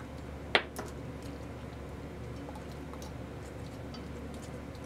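A fork clinking and scraping against a cast-iron skillet as cooked meat is picked apart: one sharp clink about half a second in, then faint scattered ticks over a steady low hum.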